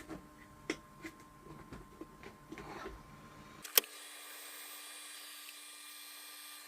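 Hands working on small parts and wiring at a bench: a few sharp clicks and taps, light rubbing and handling noise, then a steady faint hiss from about halfway through.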